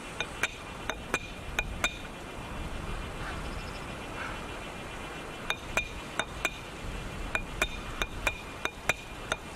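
A pebble struck against the steel of an axe head to throw sparks onto char cloth: sharp metallic clinks with a short ring. A run of about six strikes, a pause of about three seconds, then a second run of about a dozen.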